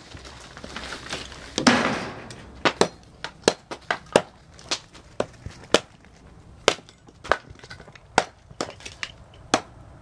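Sharp chopping strikes into a block of charred wood (bio-char), about two a second and unevenly spaced, trimming it down, with a louder crumbling crunch about two seconds in.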